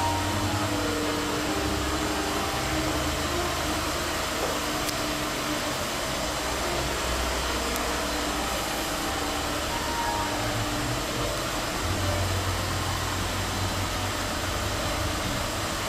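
Steady mechanical rushing noise with a low hum underneath, even throughout.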